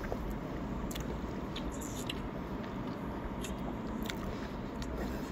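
Close-up chewing of instant noodles, with a dozen or so short sharp clicks and smacks scattered through, over a steady low background hum.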